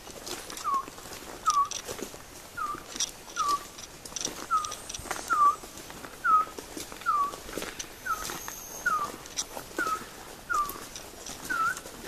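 A person imitating the call of a resplendent quetzal: a long run of short whistled notes, mostly in pairs, each dipping and then rising slightly in pitch, repeated steadily about once a second.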